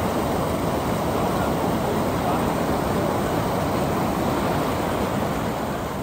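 Whitewater of the Elbow River rushing and splashing over rocks in rapids: a steady, even rush of water.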